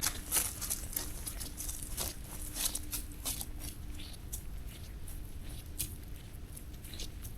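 Footsteps of a person walking on a trail: light, sharp scuffs and clicks at roughly two a second, softer than the heavier steps just before.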